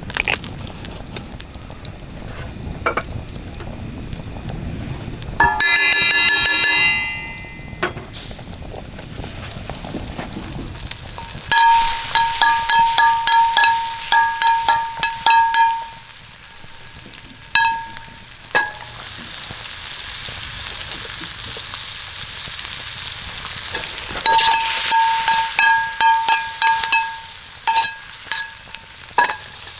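Food sizzling in a frying pan while it is stirred, with a utensil repeatedly scraping and squeaking against the pan in two spells. A short ringing clang comes about six seconds in.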